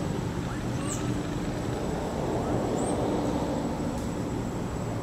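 Outdoor background noise: a steady low rumble that swells slightly near the middle, under a thin, steady high-pitched whine. Two brief high chirps come about two seconds apart.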